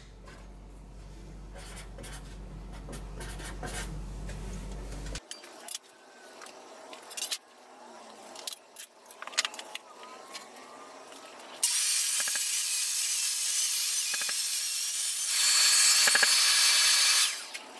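Small taps and clicks of handling tools on an MDF sheet, then a loud, steady motor noise starts suddenly about twelve seconds in, gets louder about three seconds later, and stops near the end.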